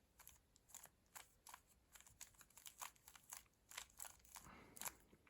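Faint, quick plastic clicks of a Rubik's cube's layers being turned by hand, several a second and irregular.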